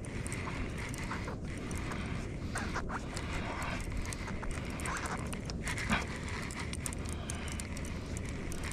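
Steady outdoor wind and water noise on an open kayak, with scattered light clicks and ticks through it.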